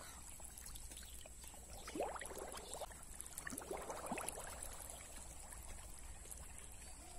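Faint sloshing and gurgling of shallow water, in two short spells: one about two seconds in and another around four seconds in.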